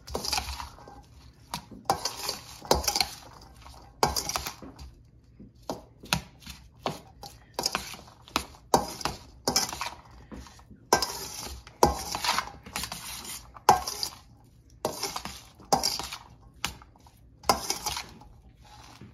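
Utensil scraping and clinking against a bowl as seasoned rice is tossed and mixed with oil, in repeated short strokes about one or two a second.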